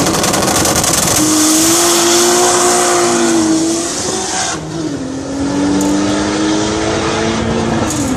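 Two Volvo 940 drag cars, one with a B230 8-valve four-cylinder and the other with a Toyota 2JZ engine, accelerating hard off the start line at full throttle. The engine note climbs through a gear, drops at a gear change about five seconds in, climbs again and drops at another change near the end. The roar fades as the cars pull away down the strip.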